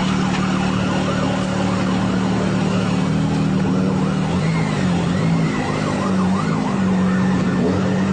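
Police siren sounding over a steady low drone from running vehicles.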